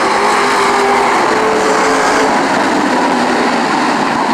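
Engines of several race cars running at speed around the track, a loud steady blare of engine noise.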